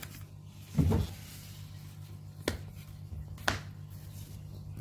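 Handling noise from the cardboard box being held and turned: a soft thump about a second in, then two sharp clicks about a second apart, over a steady low hum.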